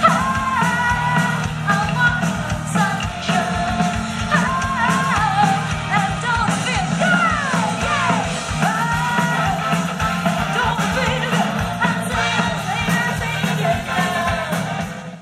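Live rock band playing: electric guitars, bass and drum kit with keyboard under sung lead vocals, the voice gliding up and down through the middle of the passage.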